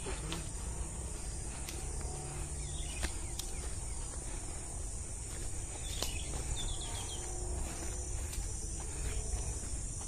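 Woodland ambience: a steady high-pitched drone of insects, with a few faint bird chirps about six to seven seconds in.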